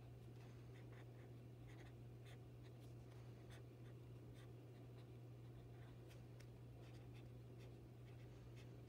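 Felt-tip marker writing on paper: faint, irregular scratches and squeaks of the pen strokes, over a steady low hum.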